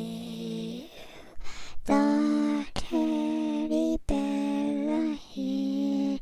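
A voice humming a string of about five held notes, each about a second long with short breaks between, one sliding down in pitch at its end.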